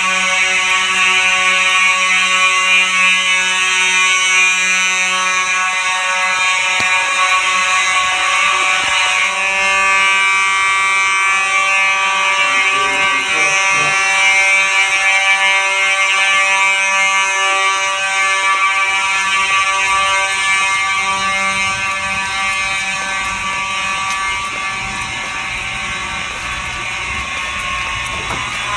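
Several Simplex fire alarm horns sounding together on test: a loud, continuous, buzzing blare of overlapping pitches with no pauses.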